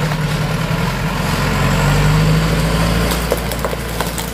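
Heavy diesel truck's engine running steadily at low revs as the truck rolls slowly, with a few light clicks near the end.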